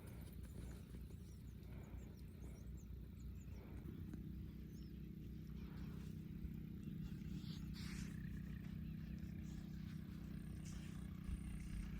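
Faint, steady low motor hum that comes in about four seconds in, over low outdoor background noise.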